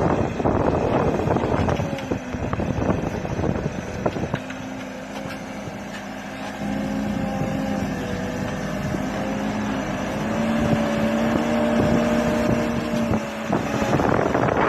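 Backhoe's engine running, with a steady whine that shifts slightly in pitch a few times through the middle stretch, and wind buffeting the microphone at the start and end.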